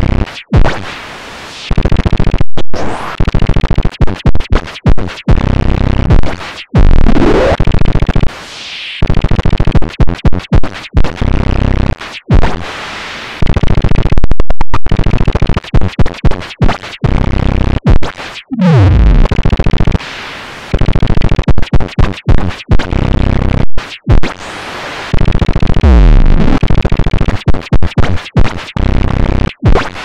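Filtered white noise from a VCV Rack modular patch, passed through the VCV Parametra equaliser whose band frequency and gain are swept by a Mental Quad LFO. The noise is chopped into rapid, irregular gated bursts, and resonant peaks glide up and down in pitch, with steep falls in pitch about eighteen and twenty-six seconds in.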